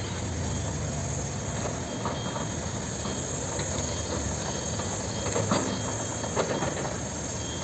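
Cat 324D hydraulic excavator's diesel engine running under load as the machine works its boom and digs, a steady mechanical noise with a couple of short knocks a little past the middle.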